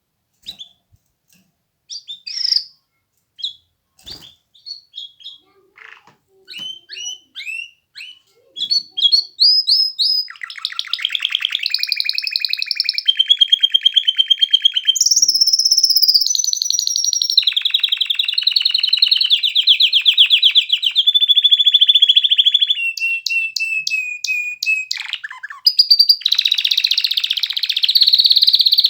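Domestic canary singing: scattered short chirps at first, then from about ten seconds in a loud, continuous song of rapid trills that changes pitch every second or two.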